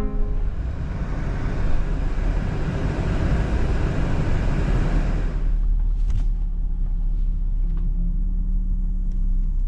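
Car cabin noise: a steady low rumble of a moving car, with a louder rush of road and wind noise that falls away about halfway through, leaving the low rumble.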